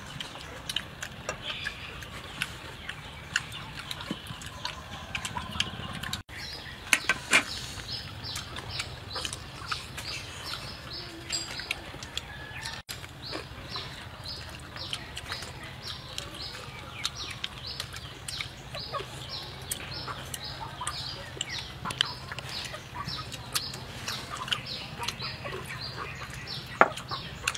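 A bird chirping over and over in short, falling high notes, several a second, starting about a quarter of the way in. Scattered sharp clicks of spoons and bowls sound alongside.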